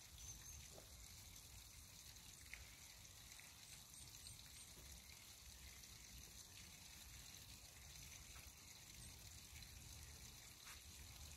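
Near silence: faint background hiss with a few faint ticks.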